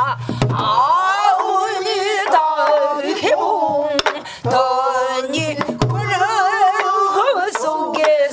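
Namdo folk song sung with deep, wavering vibrato, accompanied by a few strokes on a buk barrel drum.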